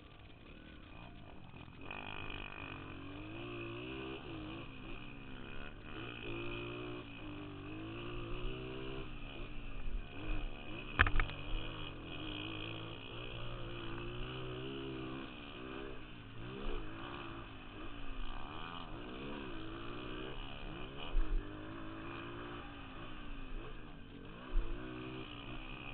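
Small dirt bike engine revving up and down as it is ridden around a dirt track, its pitch rising and falling with the throttle. A few sharp knocks are heard, the loudest about eleven seconds in.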